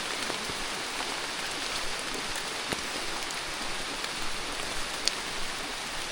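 Steady rain-like hiss with a few scattered faint ticks, the clearest about five seconds in.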